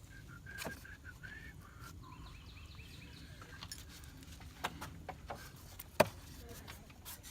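A few faint, sharp clicks, the clearest about a second in and again near six seconds, over a low steady background.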